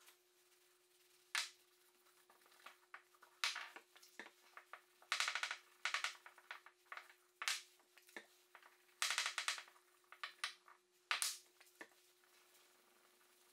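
Cloth rubbing over a wooden box piece in short wiping strokes, a few every second or two, as an oil finish is wiped onto the wood. A faint steady hum runs underneath.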